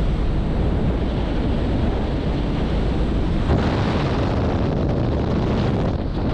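Loud, steady rush of slipstream wind at the open door of a small high-wing jump plane in flight, with the aircraft's engine underneath and wind buffeting the microphone.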